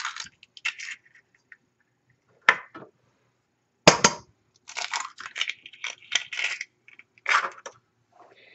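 Eggs being cracked and their shells broken open over a stainless steel stand-mixer bowl: sharp knocks, the loudest about four seconds in, and bursts of crackling shell.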